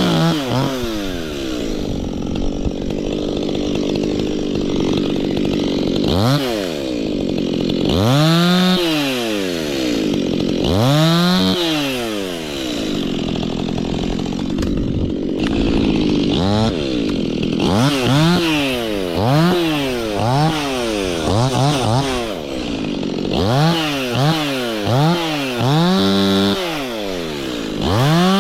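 Two-stroke chainsaw running, its engine pitch repeatedly rising sharply and falling back as the throttle is opened and released, with stretches of steadier running in between.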